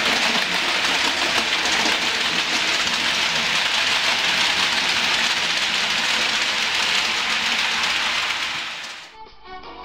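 Model train running along the layout's track: a steady rolling noise of wheels on rails that fades away about nine seconds in. Guitar music starts just before the end.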